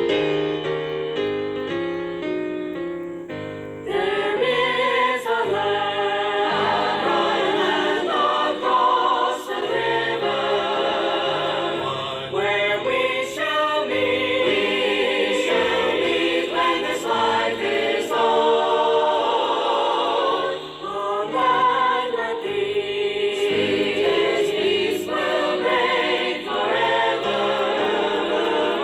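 A piano plays the introduction of a gospel song. About four seconds in, a choir comes in singing with the piano.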